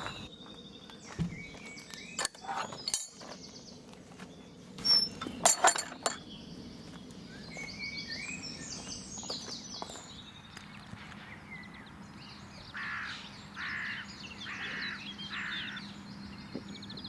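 Small birds chirping and singing in short repeated phrases, with a few sharp knocks and clicks in the first six seconds. Later come four footsteps about a second apart over a faint low steady hum.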